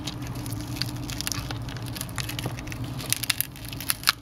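Cracked glass and adhesive crackling and clicking as a shattered Samsung Galaxy S5 display is peeled up off the phone's frame by hand, its glue softened by heat. There are a few sharper cracks near the end.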